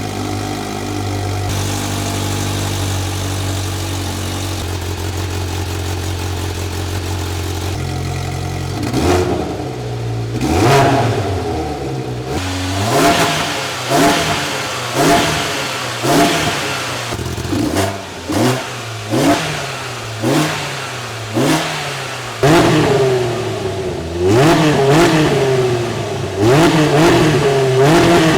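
Polaris RZR Pro R's four-cylinder engine idling steadily through its exhaust, then from about nine seconds in revved in a string of short blips about one a second, ending in a few longer revs. The exhaust note is heard through the stock system and the EVP Powersports Magnum twin-exit exhaust with Magnum header in turn.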